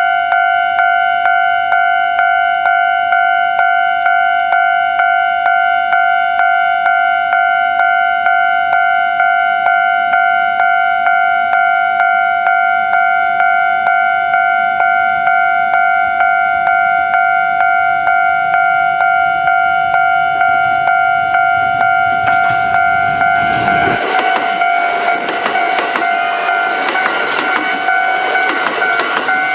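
Japanese level-crossing warning bell ringing in an even, repeating rhythm. About three-quarters of the way through, a Kintetsu 22000-series and 30000-series electric train approaches and runs past, its running noise rising over the bell.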